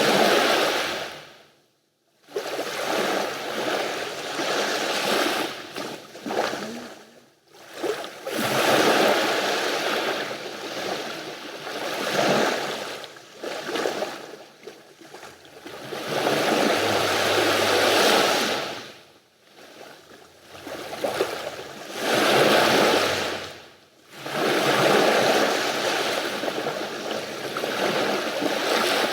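Sea waves washing onto the shore in repeated surges, each swelling and fading over a few seconds with brief lulls between them.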